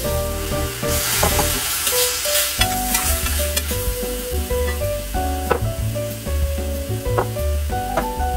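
Food sizzling as it fries in oil in a pan and is stirred, with a few sharp clicks in the second half. Instrumental background music with a bass line plays over it.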